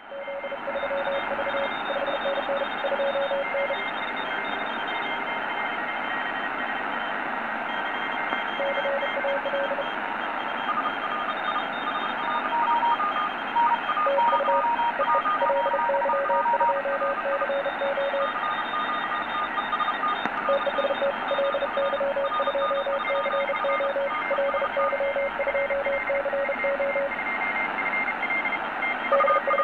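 Several Morse code (CW) signals at different pitches, each keyed on and off in dots and dashes over steady band hiss, received on the 80 m amateur band through a Tecsun PL-600 shortwave receiver in SSB mode. The receiver's audio is modified to lower the signal level, so the tones come through clear rather than distorted.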